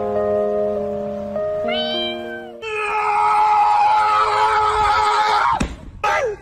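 Background music with a simple stepped melody, then a husky gives one long, drawn-out whine-howl that drops sharply in pitch near the end.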